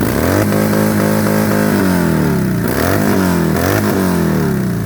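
An engine being revved: it climbs quickly to a high steady rev, holds for about a second and a half, drops, then gets two short blips about three seconds in before falling back toward idle.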